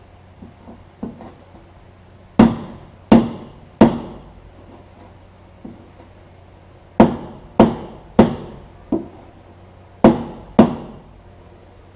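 Steel rear fender of a 1946 Chevrolet Stylemaster being struck with a body dolly to put curvature back into a panel that was hammered flat. A few light taps come first, then about nine sharp ringing blows in three groups of three.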